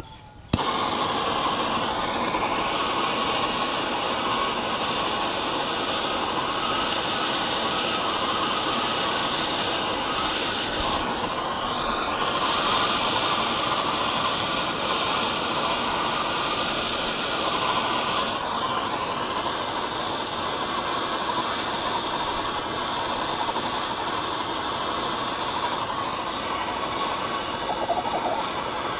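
Hand-held BernzOmatic TS4000 torch flame burning with a steady hiss as it heats a seized nut on a cast-iron lathe change gear. The flame drops out at the very start and is relit with a click about half a second in.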